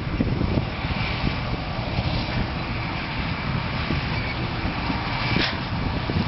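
Steady low rumble of heavy machinery running, with a faint steady high whine and wind buffeting the microphone; a short hiss about five and a half seconds in.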